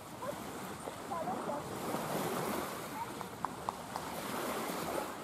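Steady wind and small waves washing on a sandy shore, with faint far-off voices about a second in and two light clicks a little past the middle.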